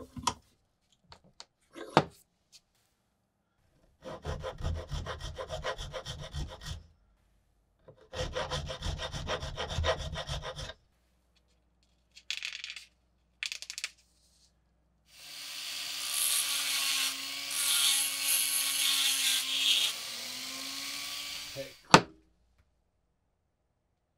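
A hand file rasping back and forth in quick strokes over the steel sawback teeth of a survival knife clamped in a bench vise, in two runs of a few seconds each. Later comes a longer, hissier stretch of scraping on a wooden block held in the vise, ending in a sharp click.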